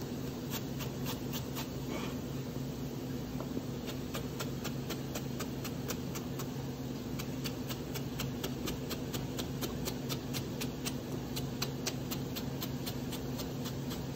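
Chef's knife cutting slices of raw potato into thin strips on a plastic cutting board: an even run of knife taps on the board, about three a second, over a steady low hum.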